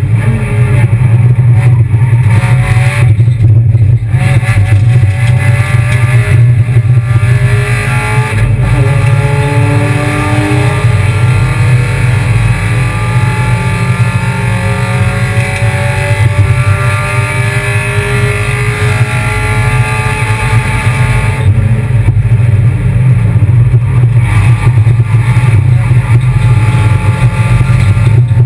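Kia Picanto race car's engine heard from behind the wheel, pulling under load over a steady low rumble, its pitch climbing slowly through a long stretch. It dips briefly about three seconds in and eases off about three quarters of the way through.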